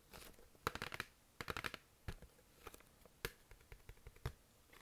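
Long acrylic nails tapping on a cardboard LP record sleeve: two quick runs of clicking taps about a second in, then a few single taps.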